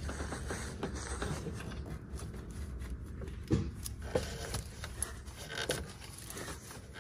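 Faint handling noise with a few sharp clicks and knocks from a swivel-head ratchet and socket turning an oil pressure sensor out, the sensor still tight after breaking loose.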